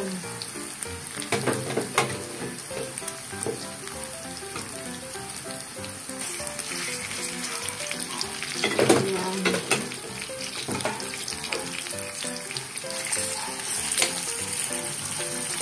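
Milkfish pieces sizzling as they fry in hot oil with sautéed miso, onion, garlic and ginger in a metal wok, with scrapes and knocks of a metal spoon and a wooden spatula against the pan, the loudest about nine seconds in. Soft background music runs underneath.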